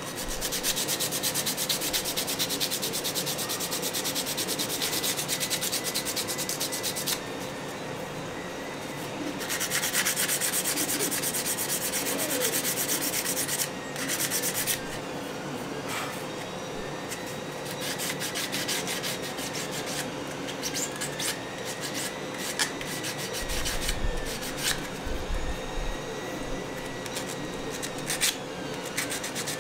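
Sandpaper rubbed by hand in quick back-and-forth strokes over a small resin 3D-printed part, smoothing off bumps left by the print supports, with a few short pauses in the rubbing.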